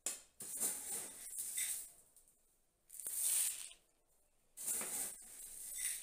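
Granular bonsai soil mix poured from a scoop into a plastic pot, three hissing, rattling pours of about a second each.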